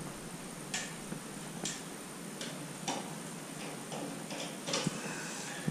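Irregular light clicks and taps, about eight of them, as stiff electrical wires and plastic wire nuts are pushed up into a ceiling electrical box and knock against a light fixture's metal mounting plate.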